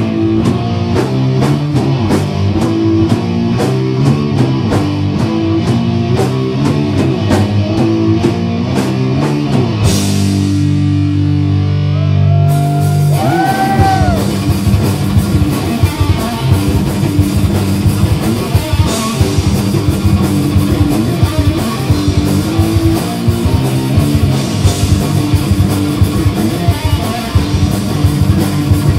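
Live heavy metal band playing loud: distorted electric guitar, bass guitar and drum kit. A riff with steady cymbal ticks runs for about ten seconds, then a cymbal swell and a held low chord, and about twelve seconds in the full band comes in with dense drumming and a high note that bends up and down.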